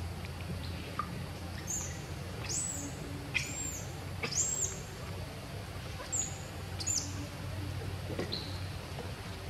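About half a dozen short, high-pitched squeaky calls, each arching up and then down in pitch, spread over several seconds; two of them end in a steep downward sweep.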